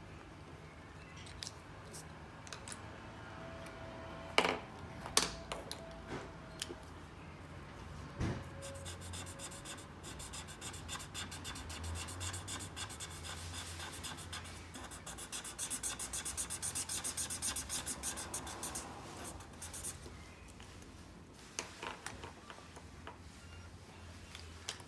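Felt-tip marker scratching back and forth on paper as a shape is coloured in, the strokes coming fast and even for a few seconds past the middle. Two sharp clicks come about four and five seconds in.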